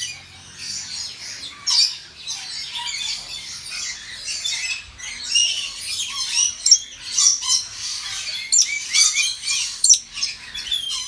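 Yellow-streaked lories calling: a fast, continuous run of short, shrill screeches and chatter, with louder squawks about two seconds in and again around seven and nine seconds.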